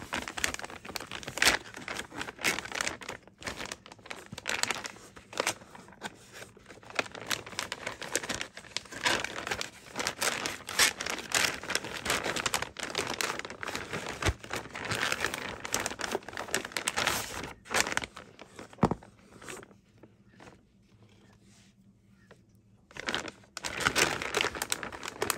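Stiff embossed vacuum-sealer bag crinkling and crackling as it is handled and packed with pieces of pork back bone. There is a quieter stretch of a few seconds about three-quarters of the way through, then the crinkling picks up again.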